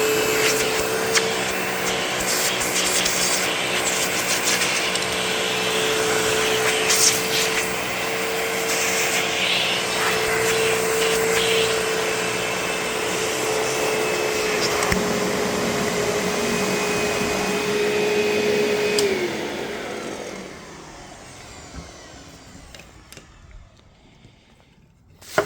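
Panasonic Performance Plus MC-V6807 upright vacuum running with a steady motor whine, with scattered clicks and knocks. Late on it is switched off and the motor winds down with a falling whine.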